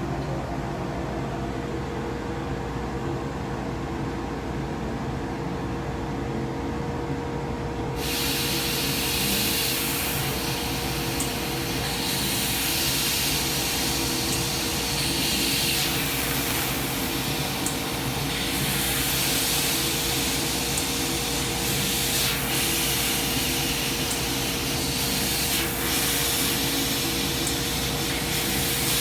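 Coherent Meta 1000-watt CNC laser cutter running with a steady machine hum. About eight seconds in, a loud hiss joins it and carries on, swelling and easing.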